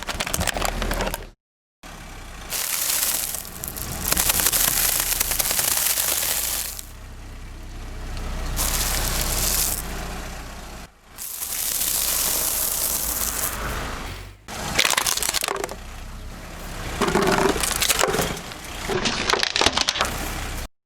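Things crunching and cracking as a car's tyres roll over and crush them, in several short cuts one after another.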